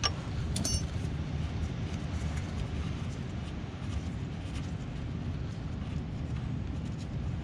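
A 13 mm wrench clicking twice on the oil pan drain plug near the start, over a steady low rumble.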